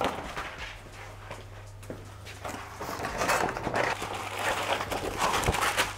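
Long abrasive sanding belt being pulled off a long-belt sander and handled: rustling and scraping of the belt with a few knocks, busier in the second half, over a steady low hum.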